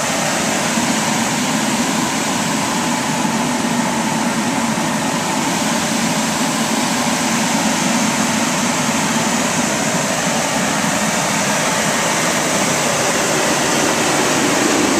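Modified bullet (forced-air torpedo) heater, fitted with a see-through quartz glass combustion chamber, running at full burn: a steady rushing noise of blower and flame with a low hum underneath.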